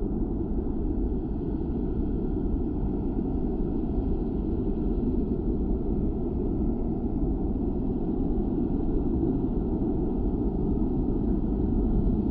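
Steady low rumble of passing street traffic, with no distinct events.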